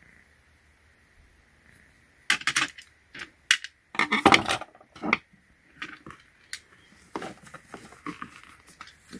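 Small metal tools clinking and rattling as they are handled, with Torx screwdrivers knocking against each other and other metal pieces. After about two seconds of quiet, it comes in a few loud clusters of clatter, then lighter clicks.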